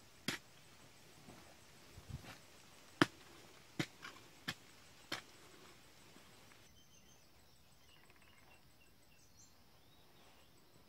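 Hoe blade chopping into packed earth: a run of sharp strikes over the first five seconds, the loudest about three seconds in. After that, only faint chirping of birds and insects.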